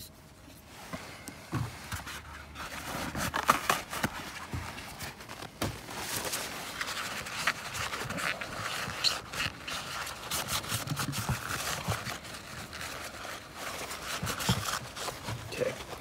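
Cotton swab scrubbing carbon deposits out of the bore of a throttle body: an irregular rubbing and scratching with many small clicks.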